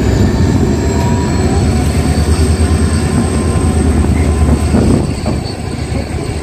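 16339 CSMT Mumbai–Nagercoil Express train running as it leaves a station: a loud, steady low rumble with a thin high whine over it, easing slightly about five seconds in.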